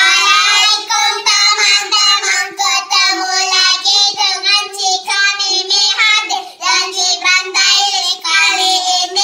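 Young children singing a song together, clapping their hands along.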